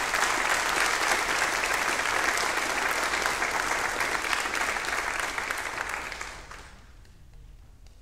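A congregation applauding with dense, steady clapping that dies away about six and a half seconds in.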